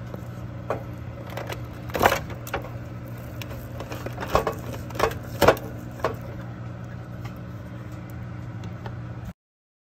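A carving knife clinking and scraping against a foil pan as a smoked turkey breast is sliced: several sharp clinks over a steady low hum, cutting off suddenly near the end.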